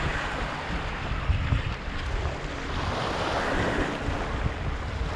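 Sea waves washing over rocks, with wind buffeting the microphone; one wave swells up about three seconds in.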